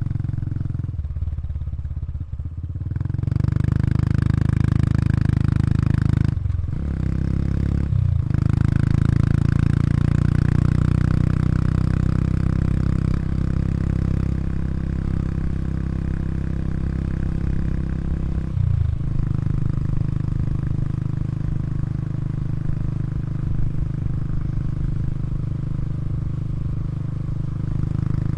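Honda Super Cub 110 Pro's single-cylinder engine running through its exhaust. It rises from a low idle about three seconds in and pulls steadily, with brief drops in engine sound about six and eight seconds in and again at about nineteen seconds, after which it runs on at a lower, steady pitch.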